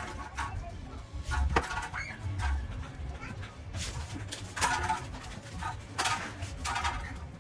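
Background music with a recurring low bass line and short bright accents.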